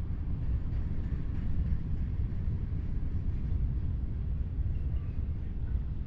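Low, steady rumble of a freight train's diesel locomotives.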